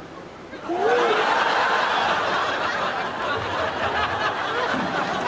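Studio audience laughing, breaking out suddenly about a second in and carrying on loudly.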